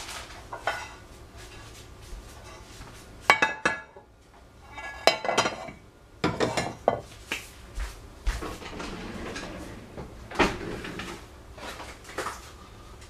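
Kitchenware being handled on a gas stove: a handful of sharp knocks and clinks as a metal saucepan is moved off and a glass baking dish is set down on the iron grate.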